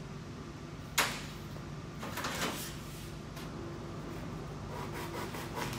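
A sharp click about a second in, then a hand back saw cutting into grey foam expansion-joint material with short rubbing strokes that grow more frequent toward the end.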